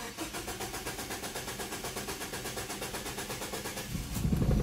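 Nissan Tiida's four-cylinder engine cranking on the starter motor in a rapid, even chug of about seven beats a second, then catching about four seconds in and running with a louder low rumble.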